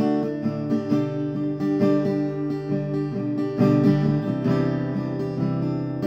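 Background music: an acoustic guitar playing a plucked and strummed tune, with notes ringing over one another.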